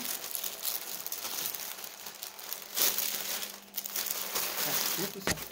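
Plastic mailer bag crinkling and rustling as it is handled and opened, with a sharp tap near the end.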